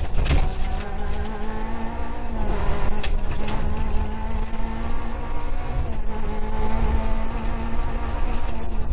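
Rally car's engine running hard, heard from inside the cabin, with road and drivetrain noise and a few sharp knocks; the engine note shifts about two and a half seconds in.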